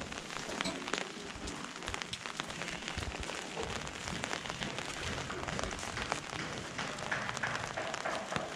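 Gentle winter rain pattering on an umbrella overhead: a dense, irregular patter of small drop ticks over a steady hiss.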